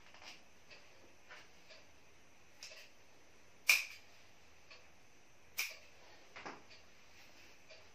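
A hand slapping down sharply on a patient's wrist and forearm twice, about two seconds apart, during bone-setting treatment. Faint light ticks come in between.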